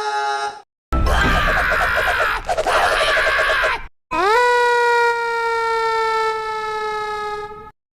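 Cartoon character screams played one after another. A harsh, raspy scream runs for about three seconds. After a brief gap comes a long, high-pitched scream that jumps up in pitch and then slowly sags.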